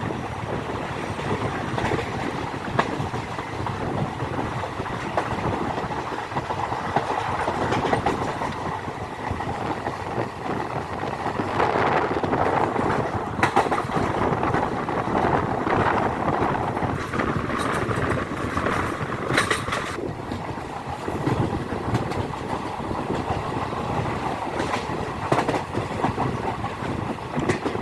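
Passenger express train running along the track, its wheels clattering over the rail joints. About two-thirds of the way through, a higher hiss joins in for a few seconds and cuts off suddenly.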